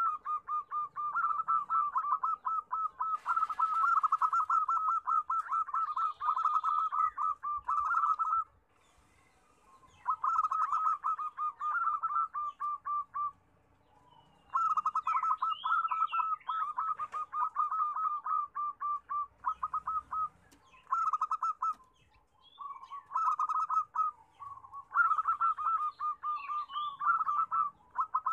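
Zebra doves (perkutut) cooing in long runs of rapid, repeated rolling notes, broken by short pauses about 8 and 13 seconds in. Faint high chirps of small birds sound above them.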